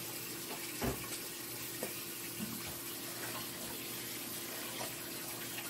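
A fork stirring shredded cheese into cream cheese filling in a stainless steel mixing bowl: a few light taps and scrapes and a soft knock about a second in, over a steady background hiss.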